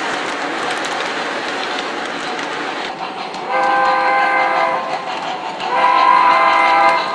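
Model steam locomotive's electronic sound system sounding a chord steam whistle in two long blasts, about three and six seconds in. Beneath it, the steady rumble and clatter of an O scale model train rolling on three-rail track.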